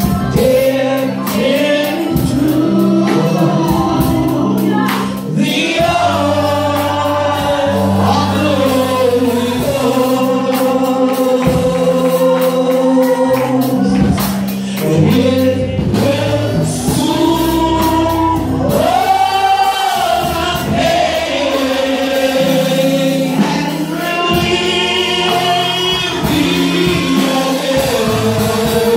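Live gospel music: a woman singing a slow, sustained melody with vibrato into a microphone, backed by a band with drum kit and a steady low accompaniment.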